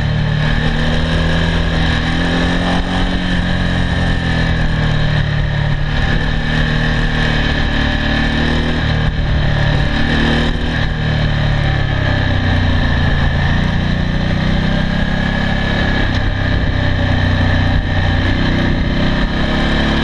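Onboard sound of an adventure motorcycle's V-twin engine running at road speed. Its pitch slowly rises and falls as the revs change, with steady rushing wind noise over the microphone.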